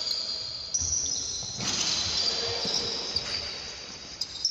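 Basketball game sounds: a ball bouncing on a wooden court with a few knocks, and players' voices calling out.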